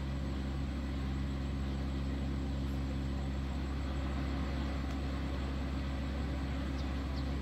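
An engine idling steadily, a low, even hum that does not change.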